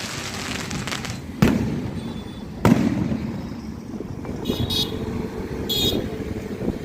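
Aerial firework shells bursting: two sharp loud bangs about a second apart, each trailing off in a rumbling echo, with a fainter bang just before them.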